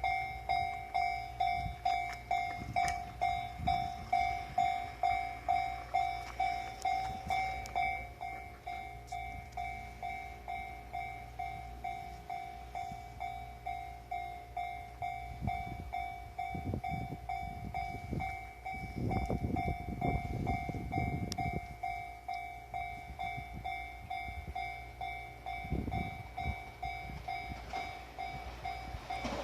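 Japanese electronic level-crossing warning bell ringing over and over, about two strikes a second, signalling that a train is approaching. Low rumbling swells rise and fall under it in the middle.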